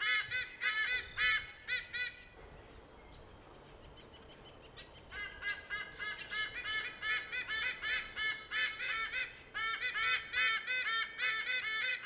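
White-bellied sea eagles giving their goose-like honking calls: quick series of loud nasal notes, about four a second. The calls pause for about three seconds early on, then resume and carry on.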